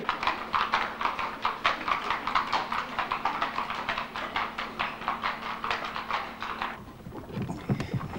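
A horse's hooves clip-clopping at a walk as it pulls a horse-drawn cab, an even run of several hoofbeats a second. About seven seconds in the hoofbeats stop and a low rumble takes over.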